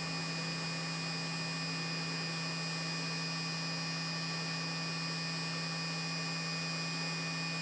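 Small motor on a DCC decoder tester, driven by a decoder at a low speed step and spinning slowly forward, giving a steady low hum with faint steady high-pitched tones over it.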